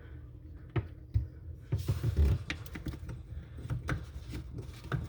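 Scattered light clicks and taps of small drain parts being handled and a nut being hand-tightened back onto the bathroom sink's drain pipe, over a low steady hum.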